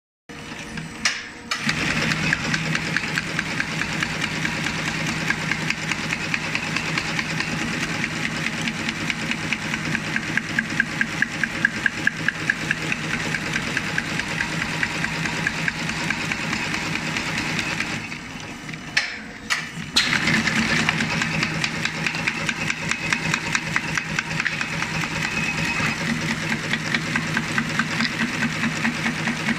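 Broom tufting machine running, its tufting head punching bristle tufts into a broom block in rapid, steady clacking strokes over a low hum. The strokes drop away for about two seconds partway through, then pick up again.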